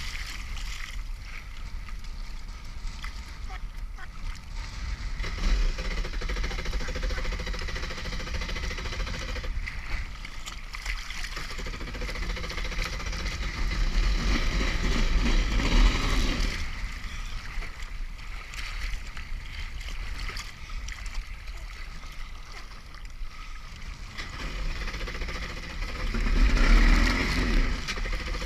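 Kawasaki 650SX stand-up jet ski's two-stroke twin running through rough water, with water rushing and splashing against the hull. The sound swells louder three times: about five seconds in, for a couple of seconds midway, and near the end.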